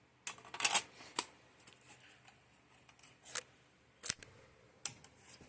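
Handling noise from a plastic fire alarm horn strobe being worked on its mounting plate: a run of sharp plastic clicks and light scrapes, the busiest just after the start, then single clicks spaced a second or so apart.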